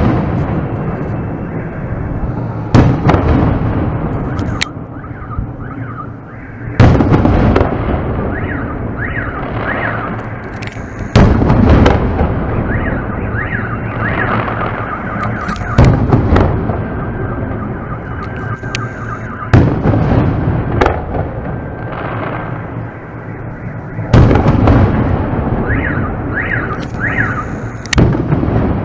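Aerial firework shells bursting at close range: about seven sharp bangs, roughly one every four seconds, each followed by a long rolling echo that dies away slowly.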